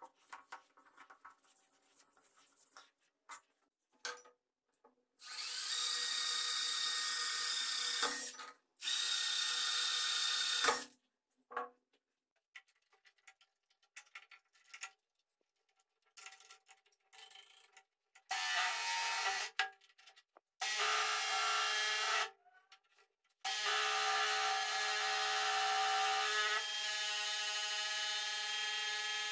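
Electric bench scroll saw running in several stretches that start and stop abruptly, with short handling clicks in the quiet gaps between. Near the end it runs steadily while its blade cuts through a pine board.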